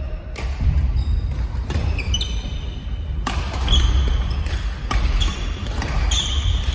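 Badminton rackets striking a shuttlecock in a rally, sharp hits roughly one or two a second, mixed with short high squeaks of sneakers on a wooden court floor. A steady low rumble runs underneath.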